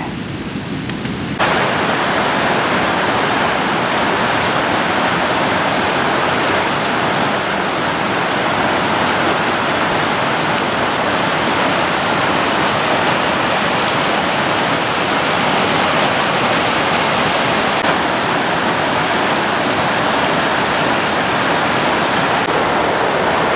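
Fast, full mountain river rushing over rocks: a steady, dense white-water rush that steps up in loudness about a second and a half in.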